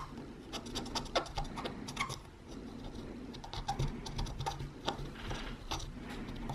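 Cotton swab scrubbing corroded metal battery contacts on a small plastic circuit board, a run of short, irregular scratchy strokes: cleaning off battery-leak corrosion with isopropyl alcohol.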